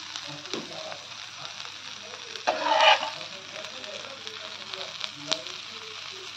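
Spice-coated okra sizzling steadily in mustard oil on a tava over a low flame. There is a louder half-second burst of noise about two and a half seconds in and a single sharp tap about five seconds in.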